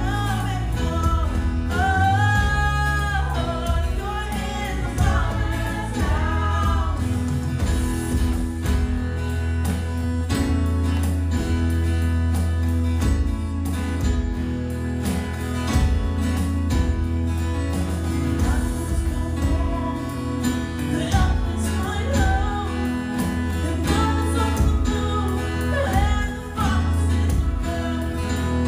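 Worship song: singing over instrumental backing with a strong bass line and a steady beat.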